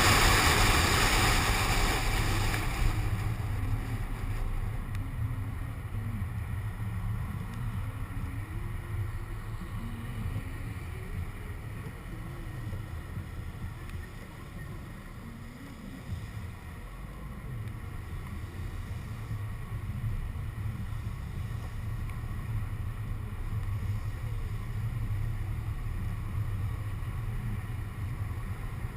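Car driving in rain on a wet road, heard from a window-mounted camera: a steady low road and wind rumble with tyre hiss. A loud hiss fills the first few seconds and fades, and the noise drops toward the middle before building again.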